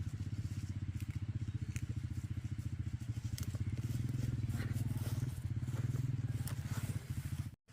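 A small engine running steadily with a fast, even low throb, cutting off abruptly near the end.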